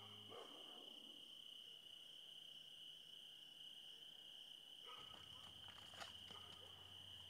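Near silence: quiet night ambience with a faint, steady high chirring of crickets. A held musical chord cuts off right at the start, and a faint low hum comes in about five seconds in, with a few soft ticks.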